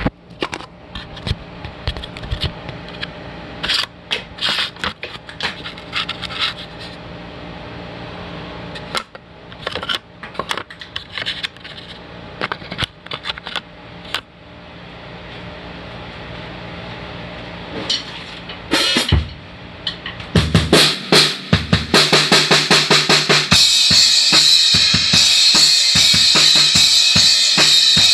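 Drum kit with Zildjian cymbals: scattered separate hits for most of the first twenty seconds, then a full hard-hit rock beat of bass drum, snare and cymbals starts about twenty seconds in. A constant cymbal wash joins a few seconds later.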